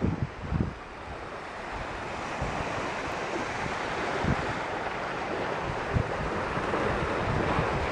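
Small waves washing onto a sandy beach: a steady rushing hiss that slowly grows louder. Wind buffets the microphone with low thumps, heaviest in the first second.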